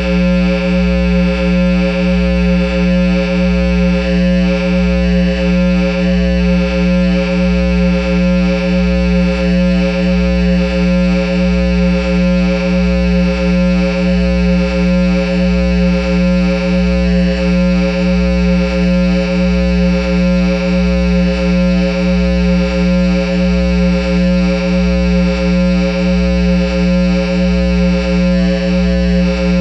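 Guitar amplifier stack (Line 6 amp head over a Peavey speaker cabinet) putting out a loud, unbroken low drone with many overtones, pulsing slightly a little more than once a second.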